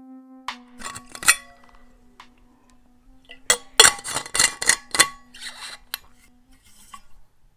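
Stainless steel bottle being handled: its screw-top lid clinks and knocks against the metal neck as it is twisted, a few knocks about half a second to a second and a half in and a dense run of clinks between about three and a half and six seconds, some ringing briefly. A steady held music tone sounds underneath.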